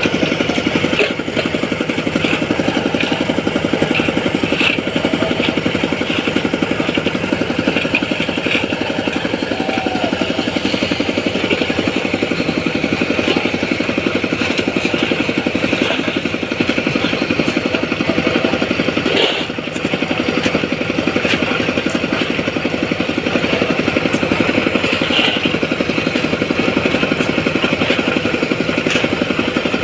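A small engine running steadily under load, with a brief dip about two-thirds of the way through.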